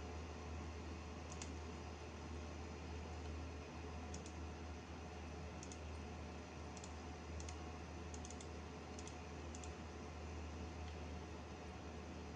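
Faint computer-mouse button clicks, many in quick pairs like double-clicks, scattered irregularly over a steady low hum.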